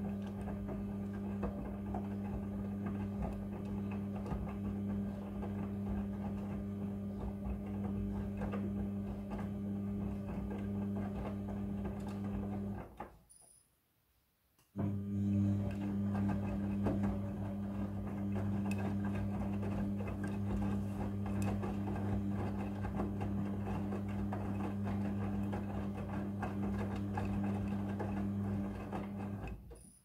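Midea front-loading washing machine tumbling a wet wash load: a steady motor hum with the clothes churning in the drum. It stops for about two seconds in the middle, then runs again, and stops just before the end.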